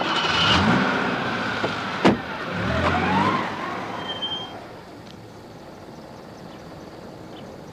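A car door is opened and someone climbs out, and the door is slammed shut about two seconds in. The car's engine revs up as it pulls away and fades after about four seconds.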